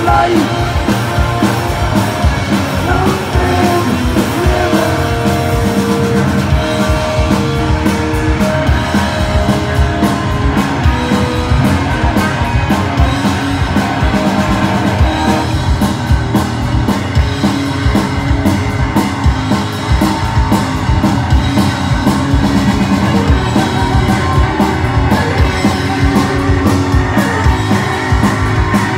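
A live hard rock band playing loud: distorted Les Paul-style electric guitar through Marshall amps, with bass and a pounding drum kit.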